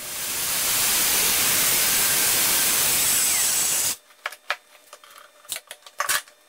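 Porter-Cable circular saw cutting through a sheet of Corian solid surface material: a loud, steady, hissing cut that stops abruptly about four seconds in. A few light clicks and knocks follow near the end.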